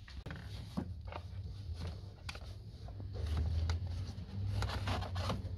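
Scattered plastic clicks and knocks as the air filter box lid is unclipped and handled, over a low rumble that swells about three seconds in and again near the end.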